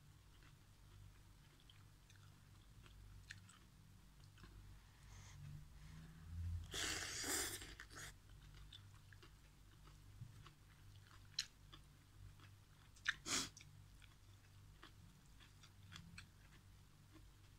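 Quiet eating sounds of instant noodles and greens: soft chewing with small wet clicks, and a long slurp of noodles about seven seconds in. A few sharp clicks follow a few seconds later.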